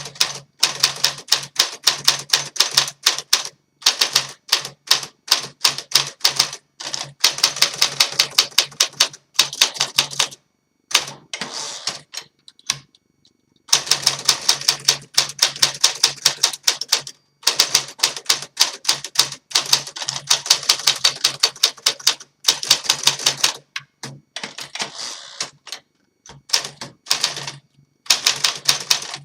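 A 1953 Smith Corona Super manual portable typewriter typed on in quick runs of keystrokes, several strikes a second, with short pauses between runs and a longer one about halfway through. The machine is freshly restored with new platen rubber.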